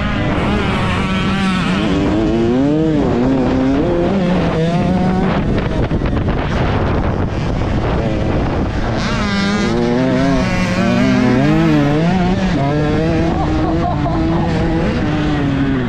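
Dirt bike engine revving up and down with throttle changes and shifts, its pitch climbing and dropping over and over, with more engine noise underneath.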